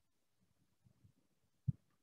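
Quiet room tone with a few faint, soft low thuds and one sharper dull thump near the end.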